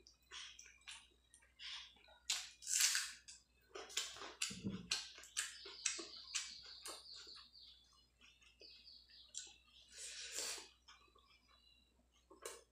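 Close-up eating sounds: a person chewing a mouthful of rice and fish with lip smacks, and fingers mixing rice on a plate, heard as a string of short, irregular clicks and smacks.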